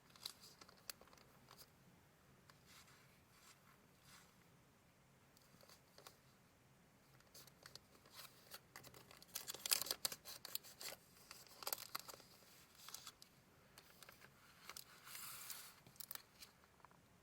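Paper being handled: faint rustling and crinkling with scattered light clicks, in short spells, the loudest about ten seconds in.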